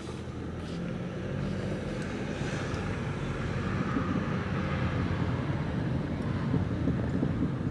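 Car driving along a paved road, heard from inside the cabin with the windows down: a low engine hum under tyre and road noise that grows gradually louder as the car moves on.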